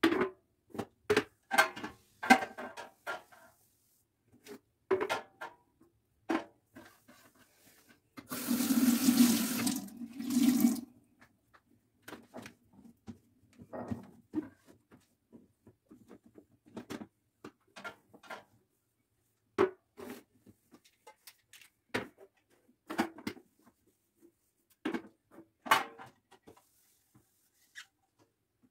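Kitchen containers and canisters being picked up and set down on a granite countertop, a scattered string of clicks and knocks. About eight seconds in, a water tap runs for two or three seconds, the loudest sound.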